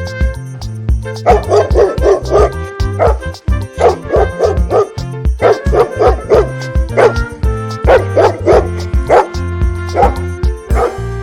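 A dog barking in quick runs of short barks, over continuous background music.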